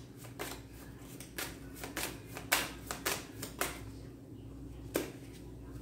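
Tarot cards being handled and laid down: a string of light, separate card taps and snaps, irregularly spaced, over a faint steady hum.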